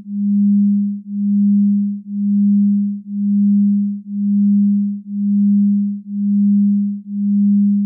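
A low pure electronic tone that swells and dips in loudness about once a second, an even pulsing hum meant to go with a hypnotic spiral.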